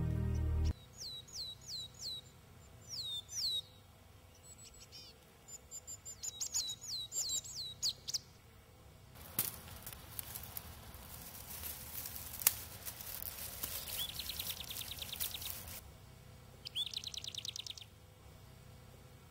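Small songbirds calling in series of short, high, downward-sweeping chirps. This is followed by several seconds of rustling as a gloved hand parts dry grass stems, and then a short rapid trill near the end. Background music cuts off in the first second.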